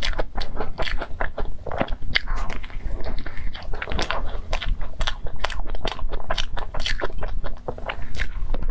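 Close-miked biting and chewing of a crunchy-topped cream puff: a quick, irregular run of crisp crunches and crackles from the crusty shell as it is bitten and chewed.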